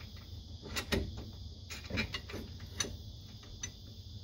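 Irregular light metallic clicks and taps as a caliper bolt is fitted loosely into the front brake caliper of a 2004 Jeep Grand Cherokee, with the caliper being worked into place over the new rotor.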